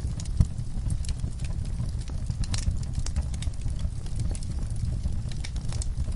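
Wood fire crackling, with irregular sharp pops over a low steady rumble of the flames; one louder pop about half a second in.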